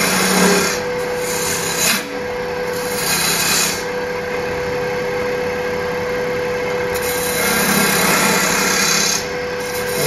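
A wood lathe spinning a wooden blank while a gouge makes light bevel-rubbing cuts, giving a continuous scraping hiss of shavings being peeled off that swells and eases with each pass, over a steady hum.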